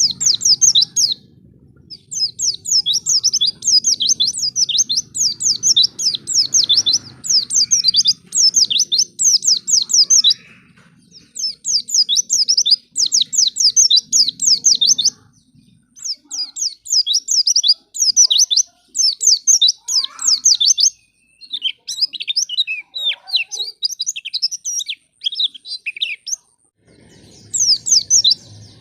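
White-eyes (pleci) singing: rapid, high, twittering chirps strung into phrases of a few seconds, separated by short pauses.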